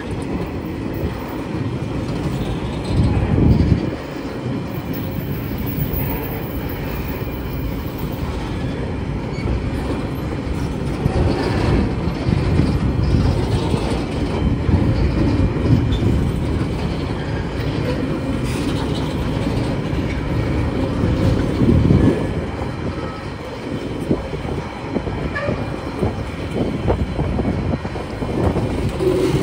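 Freight wagons of a TasRail train rolling past: a steady rumble of steel wheels on the rails, swelling louder a few times as wagons go by.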